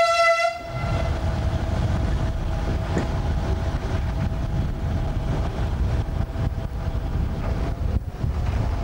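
The DE II diesel-electric multiple unit's horn cuts off about half a second in. It is followed by the steady low rumble of the train under way: engine and wheels on the track.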